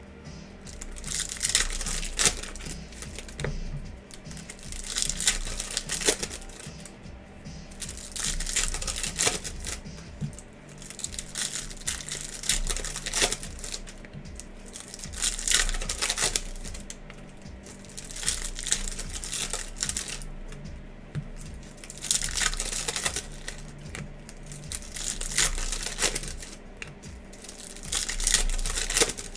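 Foil wrapper of a Topps Chrome Sonic baseball card pack crinkling and a stack of cards being handled and flipped through, in repeated bursts of rustling every few seconds.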